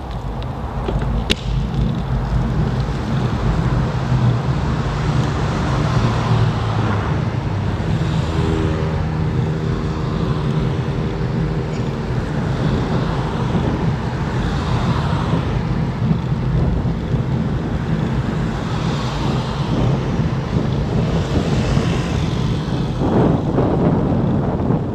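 Wind rumbling on the microphone of a moving bicycle, over tyre and road noise, with cars going by a few times.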